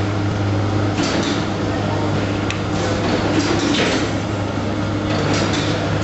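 Steady low hum under dense background noise, with faint indistinct voices now and then.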